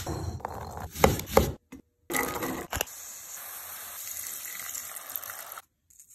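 A knife chopping celery on a wooden cutting board, a few sharp chops in the first second and a half. Then diced carrot, celery and onion sizzling in a pot for about three and a half seconds, cutting off suddenly.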